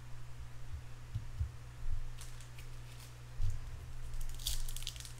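A trading-card pack being handled and torn open: a few soft thumps, then crinkling and crackling of the wrapper from about two seconds in, growing busier toward the end, over a steady low hum.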